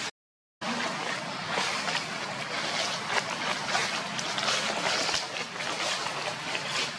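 Steady outdoor background noise, an even hiss-like haze, broken by many short crackles and rustles.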